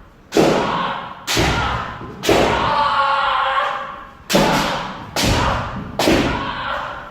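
Kendo footwork drill: feet stamping hard on a wooden dojo floor, roughly once a second with a short pause in the middle, each stamp echoing through the hall, along with shouted kiai.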